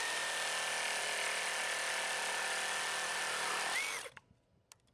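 Milwaukee Super Sawzall brushless reciprocating saw cutting through a 4x6 wooden post: a steady high whine over the rasp of the blade. It stops suddenly about four seconds in, followed by a couple of faint clicks.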